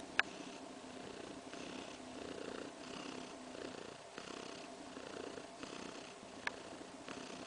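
Siberian cat purring close up, a contented purr that swells and fades evenly with each breath, about every second and a half. Two sharp clicks stand out, one just after the start and one near the end.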